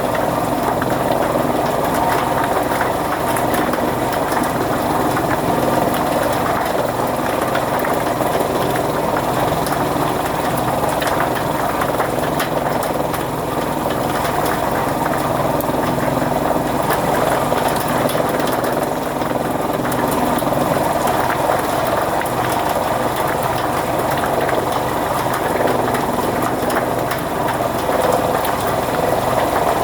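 Fodder chaff cutter machine running steadily with a continuous mechanical hum.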